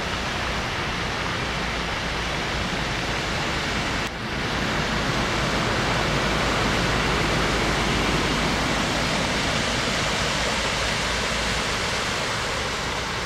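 Heavy rain falling on a flooded road, a loud, even hiss of water that dips briefly about four seconds in.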